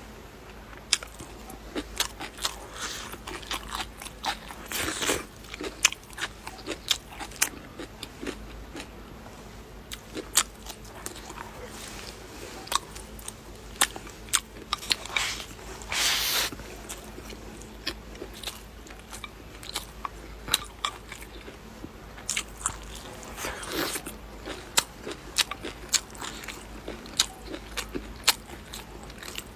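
A person eating close to the microphone: repeated crisp bites and chewing, with many sharp crunches and a few longer, louder stretches of crunching.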